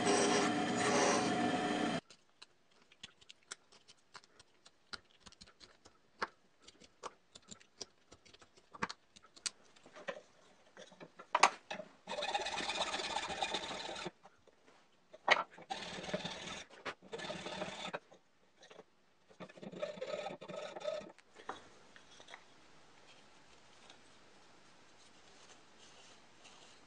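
A bandsaw cutting plywood for about two seconds, stopping abruptly, then scattered clicks and knocks of wooden parts being handled. After that come three stretches of a hacksaw sawing through plywood on a dowel held in a vise, the last ending well before the end.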